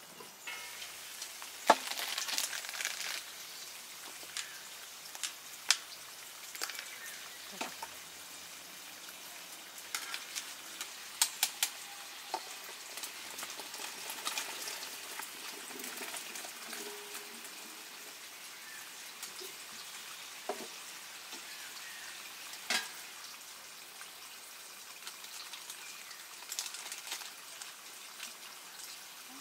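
Food sizzling as it fries in a pan, with a louder burst of sizzling about two seconds in and scattered sharp clinks of a utensil against the pan as it is stirred.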